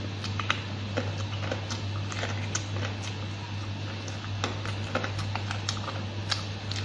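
Close-up eating sounds of a person chewing sticky braised pork ribs: irregular wet smacks and small clicks from the mouth, over a steady low hum.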